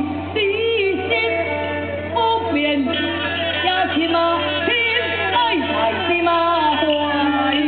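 A female performer singing a Taiwanese opera (gezaixi) aria in a male role, with a gliding, ornamented vocal line over instrumental accompaniment.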